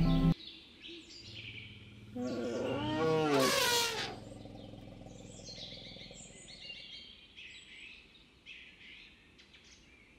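An Asian elephant trumpets once, a loud call that rises and falls for about two seconds, starting about two seconds in. Forest birds chirp throughout.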